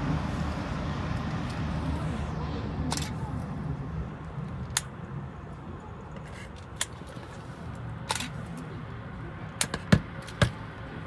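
Low rumble of passing trains on the elevated tracks, muffled by window glass and fading over the first few seconds. Sharp single clicks fall here and there, the loudest two near the end.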